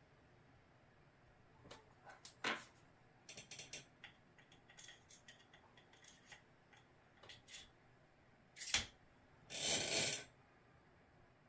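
Small metal airgun barrel parts clicking and tapping as they are handled and screwed together. Near the end come one sharp click and then a scraping rattle lasting about a second.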